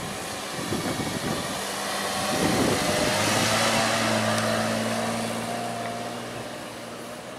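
Toyota FJ Cruiser's 4.0-litre V6 petrol engine pulling the 4WD through soft sand as it drives past and away, its steady engine note growing louder and then fading, over a constant hiss of wind and tyre noise.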